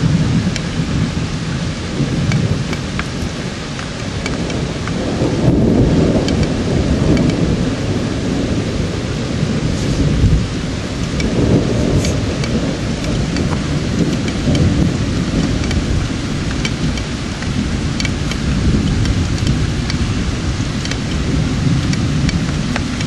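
Steady rain with rolling thunder, the rumble swelling about five seconds in and again about eleven seconds in. Scattered sharp drop ticks sound through the rain.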